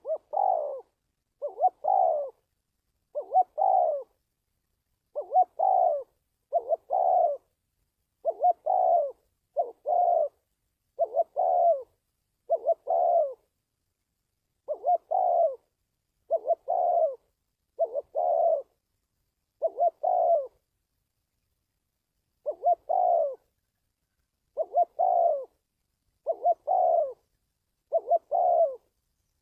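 Spotted dove cooing: a run of short, two-part coo phrases about once a second, with two brief pauses. It is a recorded call of the kind played to train decoy doves and draw wild ones in.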